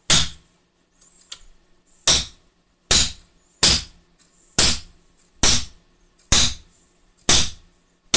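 About eight hammer blows, roughly one a second, on a steel pipe mandrel driving a pressed-on bearing down a Nissan Primera P11 gearbox shaft until it seats. Each blow is a sharp metallic clank with a short ring.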